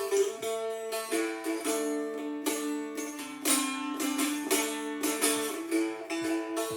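Three-string cigar box guitar tuned to open A (A-E-A), played unplugged: plucked and strummed notes on the strings, with the pitch sliding down and back up about halfway through.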